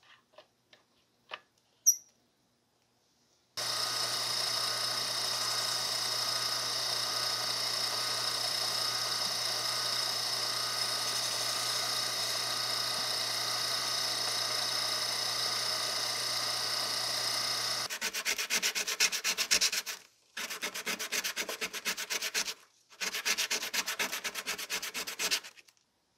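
A few light clicks and one sharp click, then a drill press motor starts and runs steadily while sandpaper rubs against a wooden handle spinning in its chuck. Near the end the hum drops away, leaving three shorter stretches of rasping sanding.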